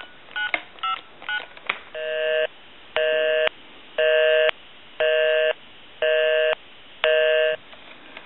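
Touch-tone keypad of an AT&T 210 Trimline telephone sounding the last few short dialing beeps, then, about two seconds in, a busy signal: six half-second tone bursts, one each second. The busy signal is heard because the phone is calling its own number, and it shows that the phone dials correctly.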